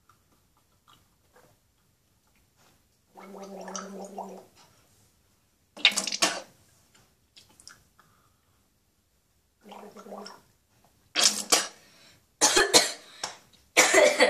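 A person drinking and gargling a mouthful of liquid, with a low gurgle. Then comes a run of short, sharp coughs and splutters near the end.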